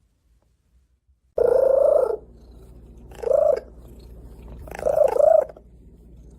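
A domestic cat meowing three times, a long call, a short one, then a two-part call, over a steady low rumble.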